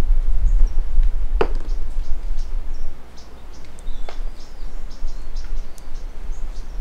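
Outdoor ambience: a low wind rumble on the microphone under scattered high chirps of small birds and insects, with a sharp click about a second and a half in.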